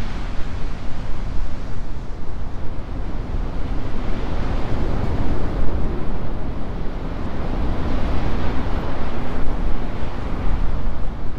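Heavy Pacific surf breaking against rocky cliffs: a continuous, even rush of waves with no single crash standing out.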